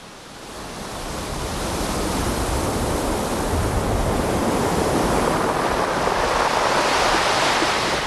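Sea surf: a steady wash of breaking waves, swelling up over the first two seconds and then holding steady.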